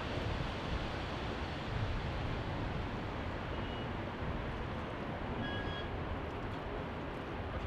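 Steady low rumble of city traffic, a continuous even noise with no distinct events. A brief faint high-pitched chirp sounds about five and a half seconds in.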